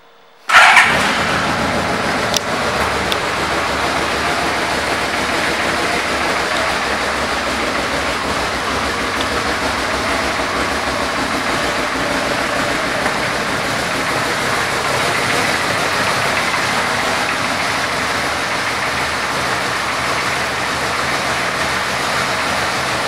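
Yamaha Royal Star Venture's V4 engine starting about half a second in, loudest as it catches, then idling steadily.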